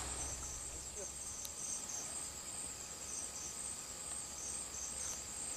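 Insects chirping: a steady high-pitched drone with a shorter chirp repeating a couple of times a second just below it.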